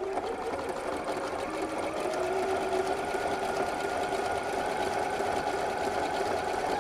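Janome sewing machine running an overedge stitch along a raw fabric edge with an overedge foot. It picks up speed over the first two seconds, then runs at a steady pace with a fine, even stitching patter.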